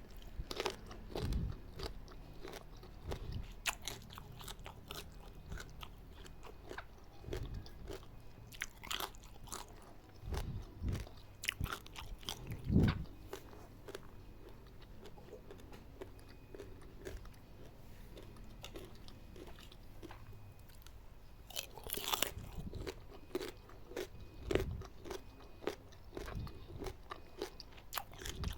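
Close-miked eating of eggplant with spicy palm sugar: crunchy bites and steady chewing, with many small wet mouth clicks. Louder bites come just after the start, about halfway through, and again about three-quarters of the way in.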